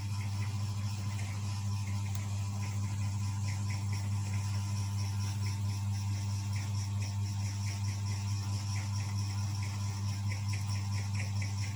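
Steady low hum throughout, with faint irregular scratching strokes of oil pastel on paper over it.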